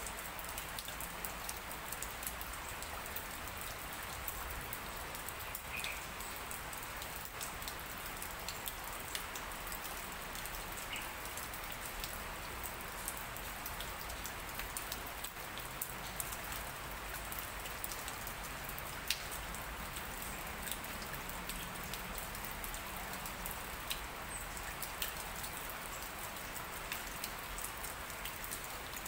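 Light rain falling steadily: an even hiss dotted with many small drop ticks, one a little louder about nineteen seconds in.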